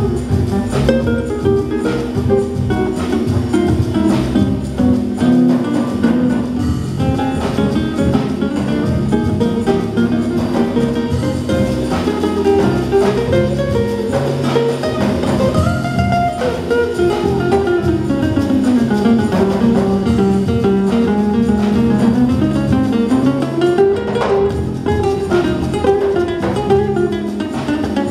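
Live jazz-tinged Latin band music led by an acoustic guitar played fingerstyle, with a melody line moving up and down over it.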